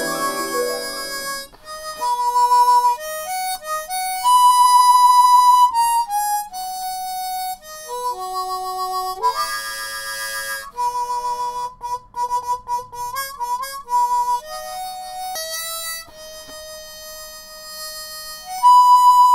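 Kazoo playing a slow melody, one held note at a time, some notes wavering slightly.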